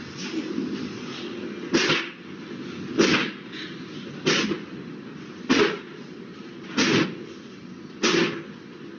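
Industrial wing loader running on a kaiser-roll bake line: a steady machine noise with a sharp clank about every second and a quarter, six in all, as the loader cycles and drops rolls toward the oven belt.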